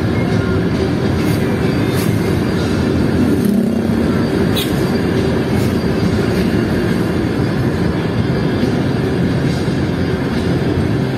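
Steady engine hum with wind and road noise, heard from on board a vehicle cruising along a paved road.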